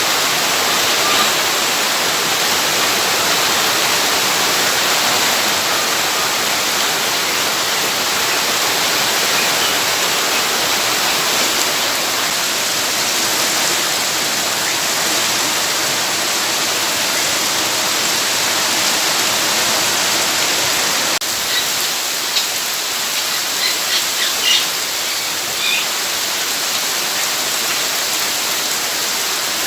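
Steady rushing water, a dense even hiss. A few short high chirps come in near the end.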